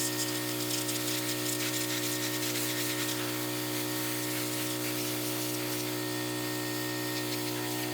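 Water spraying hard to wash out a jet ski's dirty fuel tank, over a steady motor hum.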